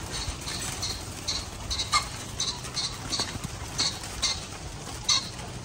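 Repeated short, high-pitched chirps or squeaks from a small animal, about two or three a second, with a few louder ones around two seconds in and near the end.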